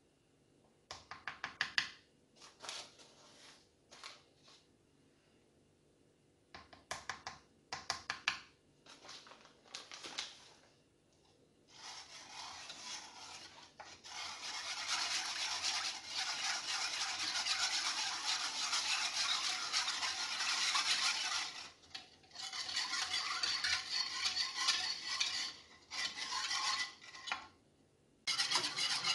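Metal balloon whisk in a saucepan of milk and flour: a few short bursts of stirring and clinking in the first ten seconds, then fast, continuous whisking, a dense swishing scrape against the pan that breaks off briefly twice and stops near the end.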